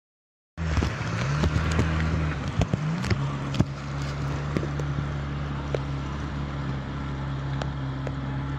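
Motorboat engine running steadily through flood water, with rushing wind and water noise and a few knocks; it begins abruptly about half a second in, its pitch shifts during the first few seconds, then holds steady.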